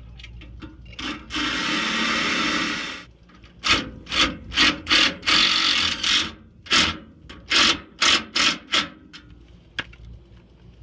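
Cordless impact driver driving a self-tapping screw to mount an RV stabilizer jack: one continuous run of about a second and a half, then about ten short trigger bursts as the screw is seated.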